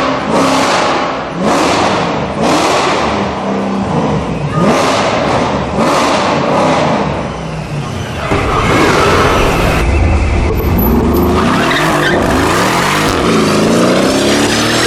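Mercedes-AMG car doing a burnout: the engine is revved in quick repeated surges with tyres skidding, then climbs steadily in revs in the second half.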